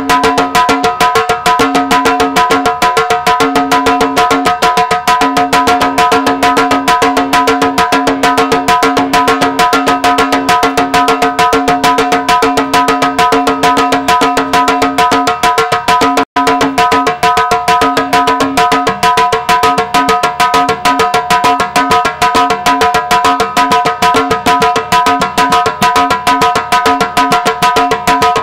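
Dance music with drums beating a fast, dense rhythm over steady held tones and a short low note that repeats in a pattern. The sound drops out for an instant about halfway through.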